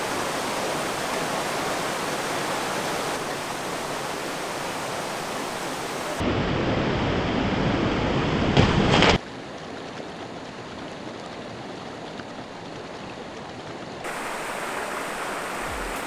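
Mountain stream and small waterfall rushing over rocks, the level jumping at cuts: louder and fuller from about six to nine seconds in, ending in a brief splash, then quieter for a few seconds before rising again.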